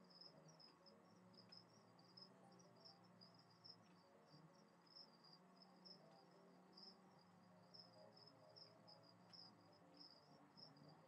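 Near silence, with a cricket chirping faintly and steadily over a faint low hum.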